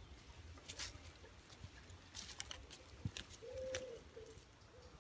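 Footsteps crunching and rustling on dry leaf litter, with a low bird call about three and a half seconds in: one longer note followed by two short ones.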